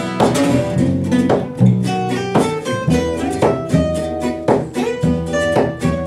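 Live gypsy jazz played by two acoustic guitars and a double bass: picked guitar notes and chords over sustained bass notes.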